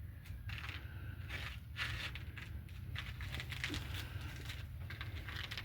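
Irregular crunching and crackling of icy snow underfoot, over a low steady rumble.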